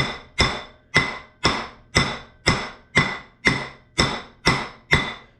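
Hammer blows driving a part down into a bore in a flanged housing, struck steadily about twice a second, each blow ringing briefly.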